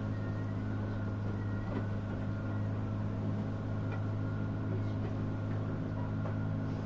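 Small ferry's engine running with a steady low hum, heard on board.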